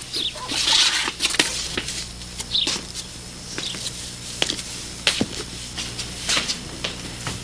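Cloth rustling as a bedsheet is pulled off a bed and wrapped around a body, loudest about a second in, with scattered light taps and clicks from soft footsteps and movement through the room.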